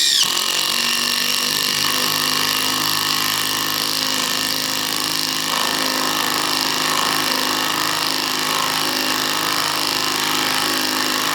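Dewalt DCF787 20-volt cordless impact driver hammering continuously on a 1/4-inch lag bolt, stopping abruptly near the end. The bolt will not go into the hard ash, and the driver twists it off.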